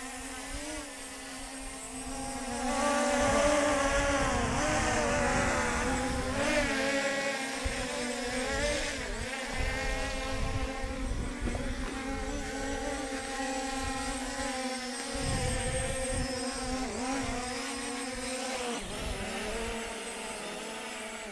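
C-Fly Faith 2 Pro quadcopter's four brushless motors and propellers whining in flight, several pitches wavering up and down as it manoeuvres, growing louder about three seconds in. Wind gusts buffet the microphone underneath.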